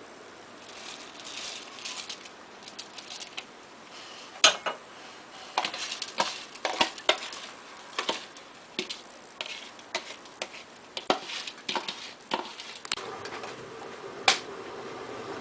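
Metal spoon clinking, knocking and scraping against a cooking pot in irregular strokes, as rice is added to simmering milk and stirred in.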